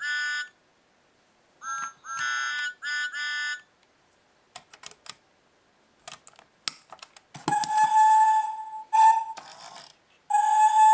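Electronic sounds from a battery-powered Thomas & Friends toy engine: short chiming musical notes, then light plastic clicks as the toy is pressed, then a loud steam-whistle sound effect in a few toots, one long, one short, one long.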